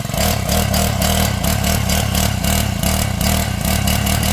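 Four-stroke petrol rock drill-breaker engine, freshly started, revved up from idle at the very start and held at high speed with a fast, even beat, loud throughout.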